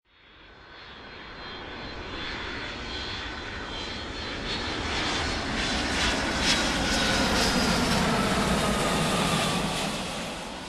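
Jet airliner flying over: engine roar and a high whine swell over several seconds, the whine falling slowly in pitch, then the sound dies away at the end.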